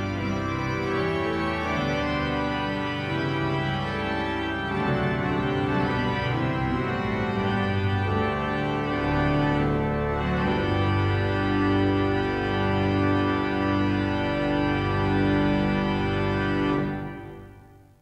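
Henry Willis pipe organ playing slow, sustained full chords that change every second or two, fading out near the end.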